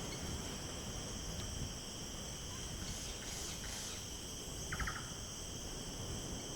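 A steady, high-pitched chorus of crickets, with a short run of quick clicks about five seconds in.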